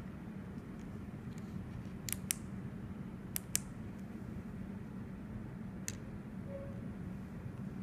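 Small tactile push-buttons on a YiHi SX350 vape chip board clicking as they are pressed: two quick pairs of clicks, then a single click, over a steady low hum.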